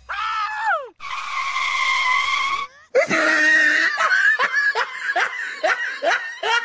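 High-pitched vocal cries: a short falling cry, then a long held high cry, then a rapid run of short rising cries like yelps or laughter, about two to three a second.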